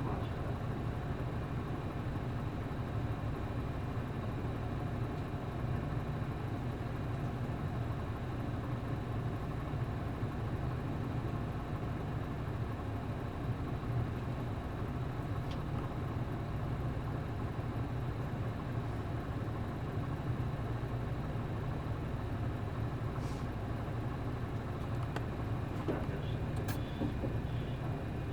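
Bus's MD92TJ diesel engine running steadily, heard inside the cabin as an even low hum that neither rises nor falls in pitch. A couple of faint clicks come near the end.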